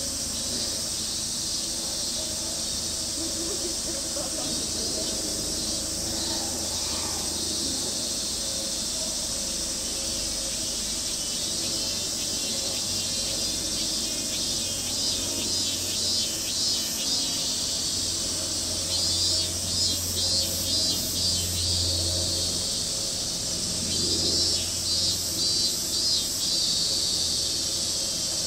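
Chorus of cicadas: a steady high-pitched buzzing that, from about halfway, swells into rhythmic pulses, about two a second, in two runs.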